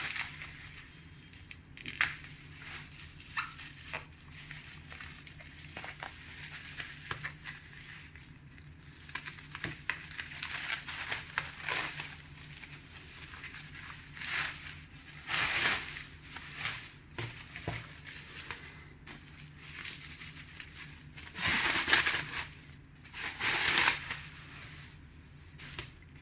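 Cardboard record-mailer packaging being handled and unpacked: irregular crinkling and scraping rustles with sharp clicks, loudest in a few bursts near the end.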